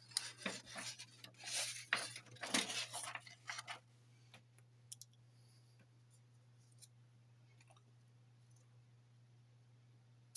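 Airbrush handling at a modelling bench: about four seconds of short clicking, clinking and hissing bursts, then a quieter stretch with a low steady hum and a few isolated clicks.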